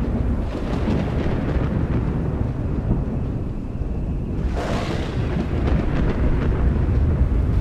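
Thunder rumbling steadily low, with a louder, sharper thunderclap about four and a half seconds in.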